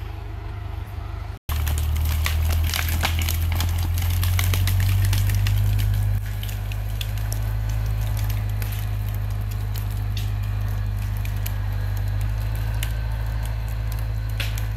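Case International 845XL tractor's diesel engine pulling hard under load with a steady low drone, easing slightly about six seconds in. Over it, dense crackling and snapping of pine roots and branches as the tree is torn out of the ground.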